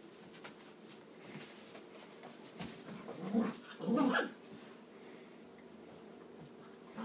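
Dogs at play, giving a couple of short whines and growling sounds about three and four seconds in.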